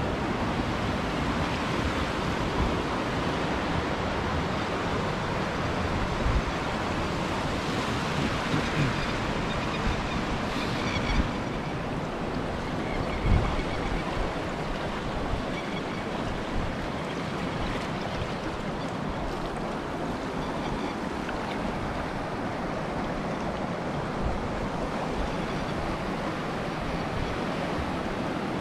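A river in flood rushing past under a footbridge, a steady wash of fast water, with a few low thumps of wind buffeting the microphone.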